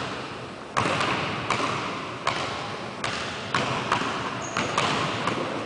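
Basketball dribbled on a hardwood gym floor: about eight sharp bounces, roughly one or two a second, each ringing with the echo of a large gym.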